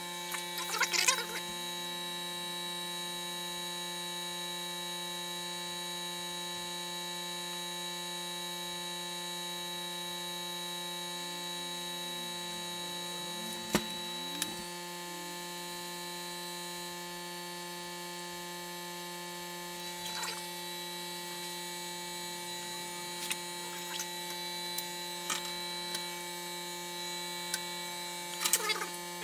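Hot air rework station and board preheater running: a steady electrical hum with a whine of several fixed pitches. A few sharp clicks of tools being handled come near the start, once about halfway through and several times near the end.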